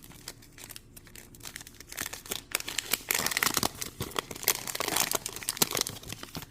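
Wrapper on trading-card packaging being crinkled and torn open. It is a dense crackling that builds about two seconds in and is loudest through the second half.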